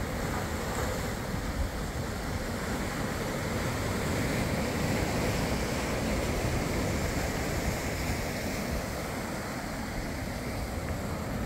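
Sea surf breaking and washing over shoreline rocks in a steady rush, with wind buffeting the microphone.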